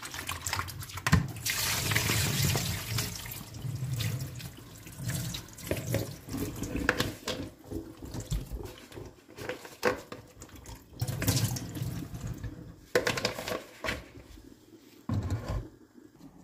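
Kitchen tap running into a plastic bowl in a sink while herbs and leafy greens are swished and rinsed by hand in the water; the splashing comes and goes in bursts and dies down near the end.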